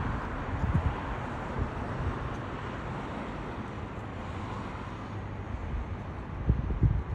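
Wind buffeting the microphone in gusts, a steady rushing noise with low rumbles that swell near the start and again near the end.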